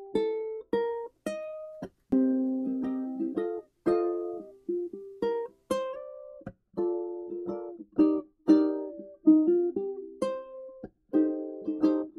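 Background music on a plucked string instrument, playing chords and single notes that each start sharply and die away.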